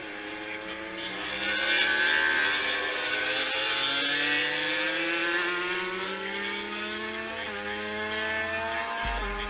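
Racing motorcycle engines accelerating along the track, their pitch climbing steadily and dropping back at each upshift, several times over.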